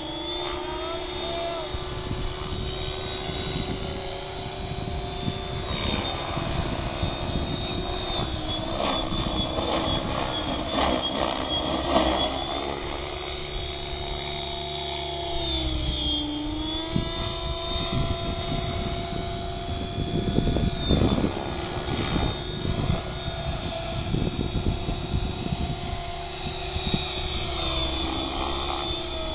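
Compass 6HV 12S electric 600-size RC helicopter in flight: a steady whine from its motor and spinning rotor, dipping in pitch and recovering a few times as it manoeuvres, over a rough low rumble.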